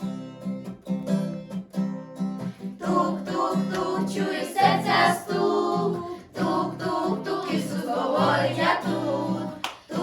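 Music of a children's action song: an instrumental opening with short plucked or strummed notes, then singing coming in about three seconds in over the accompaniment.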